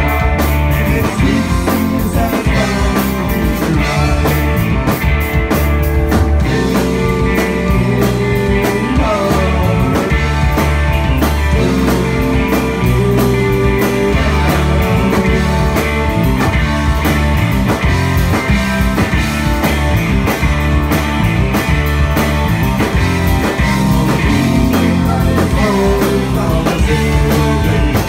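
Rock band playing live and loud: a Les Paul-style electric guitar and a Fender electric bass driving a rock song.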